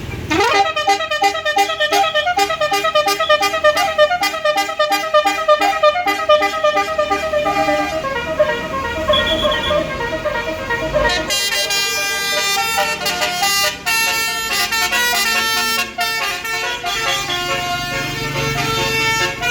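Basuri telolet musical bus horn playing a tune, first as a fast stuttering run of notes, about three a second, then in held notes. About eleven seconds in it switches to a different stepping melody.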